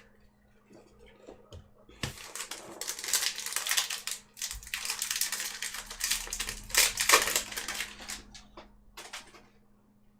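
Foil trading-card booster pack being crinkled and torn open, in irregular rustling bursts for several seconds after a quiet start.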